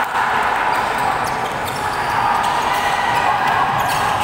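A basketball game on a hardwood court: the ball is dribbled with scattered irregular bounces, under a steady echoing din of crowd and players in a large hall.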